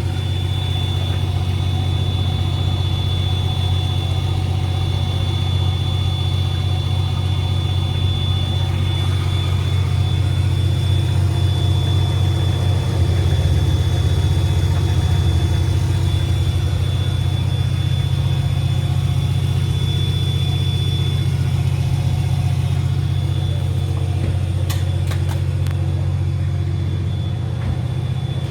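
A vehicle engine running steadily at idle, a low even drone with a faint high steady whine above it and a few light clicks near the end.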